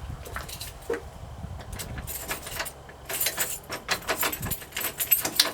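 Key jiggling in a stuck door-knob lock and the knob rattling, a run of metallic clicks and rattles that gets busier from about two seconds in. The lock is jammed and will not turn even after WD-40.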